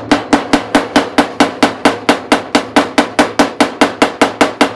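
Rapid, even hammer taps on the steel door panel of a VW Type 2 bus, about five blows a second, each with a metallic ring. The door panel is levered up with a claw hammer while the metal is tapped to relieve a dent.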